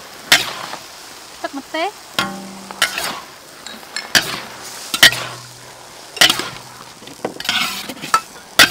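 A metal spatula and ladle scrape and clank against a large wok, with sharp strikes at irregular intervals about a second apart, while julienned carrots and greens sizzle in the hot oil.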